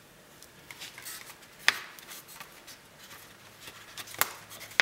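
Fingers pressing candy dough into a thin plastic candy-kit mold tray: light taps and rubbing on the plastic, with a sharp click about a second and a half in and two more near the end.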